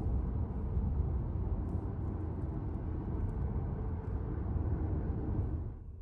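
Steady road and engine rumble heard inside a car cabin while driving at highway speed, dropping off abruptly near the end.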